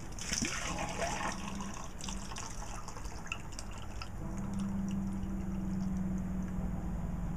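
Coconut water pouring from a chopped-open coconut into a plastic cup and splashing, then dribbling off in scattered drips. About four seconds in, a steady low hum joins.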